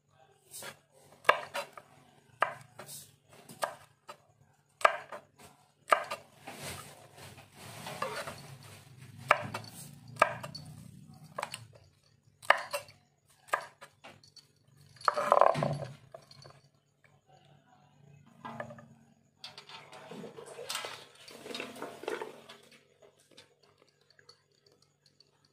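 Kitchen utensils and dishes clattering: irregular knocks and scrapes about once a second, with a longer, louder clatter about fifteen seconds in, over a faint steady hum.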